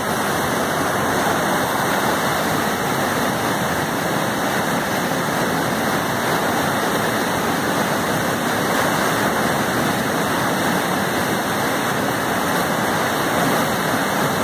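Warm Springs rapid on the Yampa River at about 15,000 cfs high water: big brown whitewater waves rushing and crashing over boulders in a steady, loud, unbroken wash of noise.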